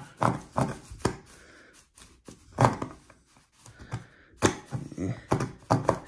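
A reciprocating-saw blade clamped in the locking jaws of a Leatherman Crunch multitool, hand-sawing a tongue-and-groove wooden board in short rasping strokes that come in uneven runs with pauses between. The blade is cutting only slowly, and a full cut will take a long time.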